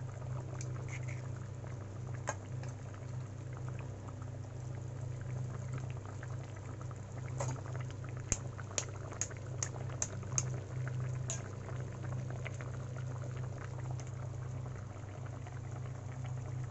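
Potato curry gravy boiling in a wok, bubbling steadily over a low steady hum, with a run of sharp clicks about halfway through.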